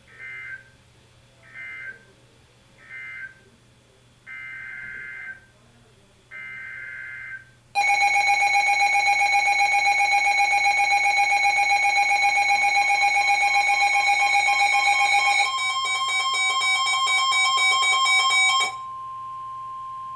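NOAA Weather Radio Emergency Alert System signal: five bursts of warbling SAME data tones, the last two longer, then a loud steady alert tone from about 8 s in. Near 15 s the tone turns to a rapid pulsing beep, which stops a little before the end, leaving a fainter steady tone.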